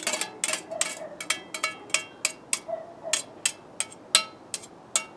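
Metal tongs clinking and scraping against a stainless steel steamer tray, many quick irregular taps with a short metallic ring.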